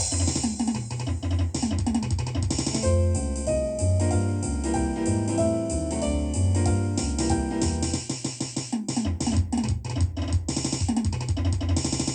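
Jazz with piano and drums over a low line that moves about twice a second, with a run of sharp accented hits between about 8 and 11 seconds in.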